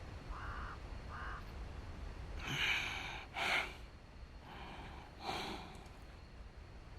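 A man coughing and gasping for breath: a few harsh coughs and sharp intakes of breath in the middle of the stretch, after two faint short sounds near the start.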